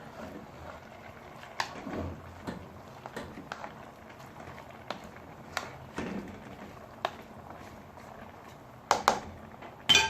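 Spoon stirring thick plantain porridge in a pot, with irregular clicks and knocks of the spoon against the pot, the loudest near the end.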